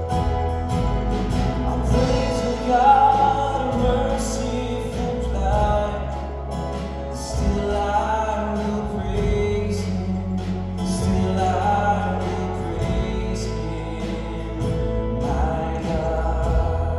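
Choir singing a slow piece, voices wavering in pitch, over sustained low notes that change every few seconds.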